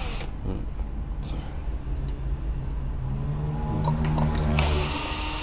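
Cordless drill-driver with a hex bit backing out screws from an LED street-light housing. It runs with a high motor whine briefly at the start and again from about four and a half seconds in, with a lower steady hum between.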